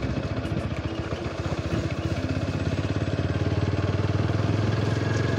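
Motorcycle engine running at low road speed, its firing pulses steady and then picking up a little toward the end as the bike accelerates.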